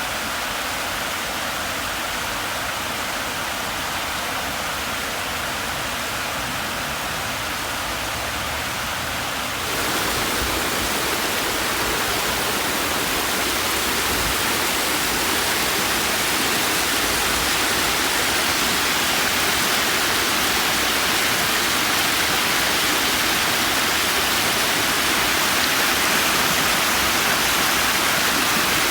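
Flooded creek water rushing in a steady wash of noise, the creek running high and pouring over a footbridge. It gets louder and fuller about ten seconds in.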